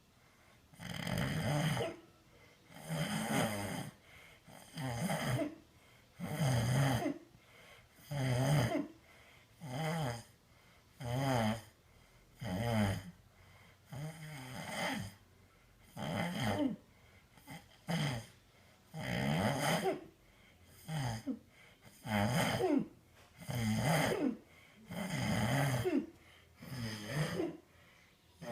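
Heavyset man snoring in a steady rhythm, one loud snore about every second and a half.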